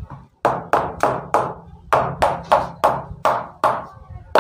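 Hammer tapping on a steel slipper-sole cutting die set on a rubber slipper sheet, about a dozen sharp blows at roughly three a second, the last the loudest, freeing the freshly cut sole.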